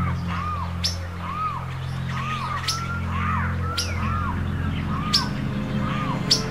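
Jungle bird ambience: a bird repeats a short arching call about once a second, with sharp high chirps from other birds, over a low steady drone.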